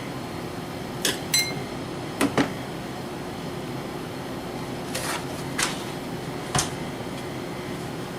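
Light metal clicks and taps, about seven in all, a couple ringing briefly with a high tone: small tacks and tools being handled. A steady hum runs underneath.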